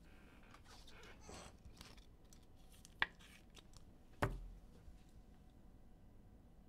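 Soft rustling of a trading card and plastic being handled, then a sharp click about three seconds in and a louder plastic snap with a thud just after four seconds, as the card is sealed into a thick clear plastic holder.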